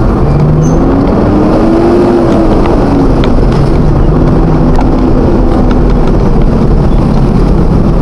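A truck's engine and road noise, loud and steady from inside the cab as it creeps along in traffic. The engine pitch rises over the first two seconds, then falls away.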